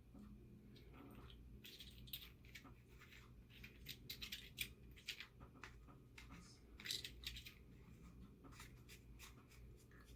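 Faint handling noises from unboxing a rifle scope: scattered small clicks, rustles and scrapes, busiest in the middle, over a low steady hum.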